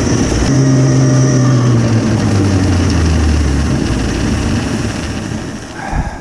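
DIY electric snowmobile with an ME1115 motor riding along a snowy trail: steady track and drive noise with wind on the microphone and a steady high whine. It dies down near the end.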